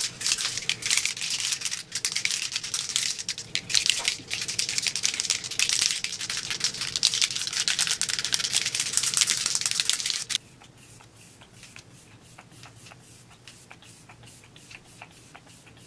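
A plastic pump bottle of illuminating setting spray shaken hard, its liquid rattling and sloshing in a fast, dense clatter for about ten seconds. It then goes much quieter, with faint short puffs and clicks as it is spritzed onto the face.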